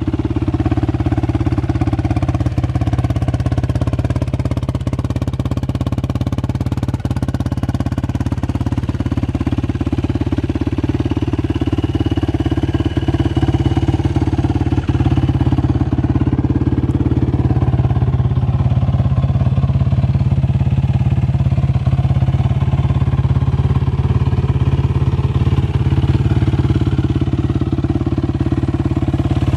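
Yamaha YFZ450 single-cylinder four-stroke engine, with a freshly rebuilt Wiseco top end, running steadily just after starting.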